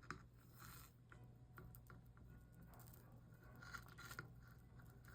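Very faint scraping and small ticks of a soldering iron tip worked along the solder seams of a stained-glass panel, over a steady low hum.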